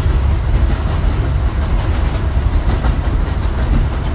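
Train running on the rails, a loud steady low rumble with rail clatter as heard from inside the moving car.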